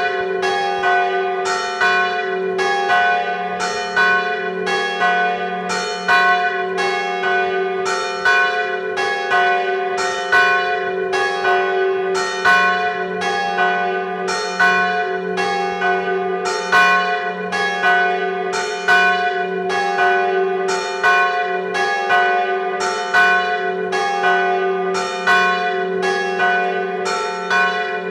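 Church bells tolling a death knell (glas), heard up close in the belfry: the big bell swings in full peal with the smaller bells tolled alongside. The strokes come steadily, a little faster than one a second, over the big bell's continuous hum.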